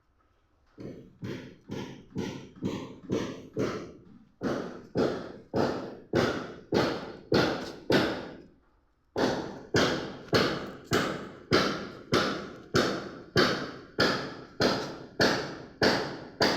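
Steady hammer blows, about two a second, growing louder over the first few strikes, with a short pause a little past halfway.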